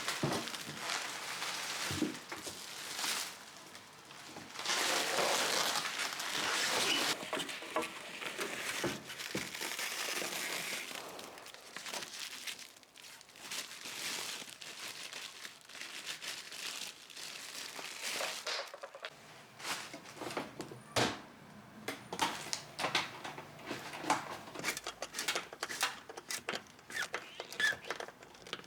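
Packaging crumpling and rustling as it is handled for about the first ten seconds, then scattered light clicks and taps.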